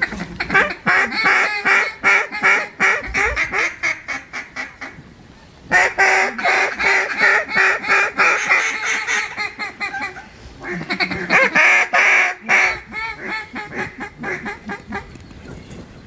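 Duck calls blown to work circling ducks: three long runs of rapid quacks, each starting loud and tapering off, with short pauses between the runs.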